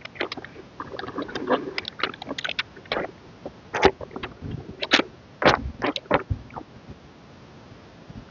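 Album packaging and its contents being handled during unboxing: irregular rustles, light taps and scrapes of paper and plastic, with a few sharper clicks.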